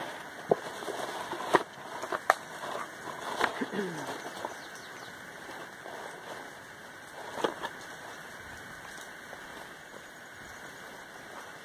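A person wading out of shallow river water: a few sharp splashing steps in the first four seconds and one more about seven and a half seconds in, over a steady background hiss.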